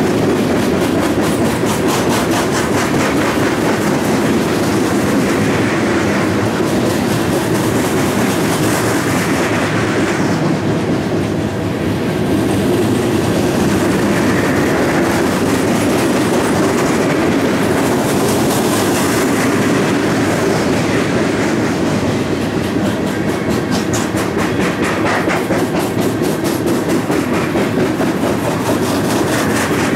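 Freight train's coal hopper cars rolling past, loud and steady: steel wheels clickety-clacking rapidly over rail joints over a continuous rumble.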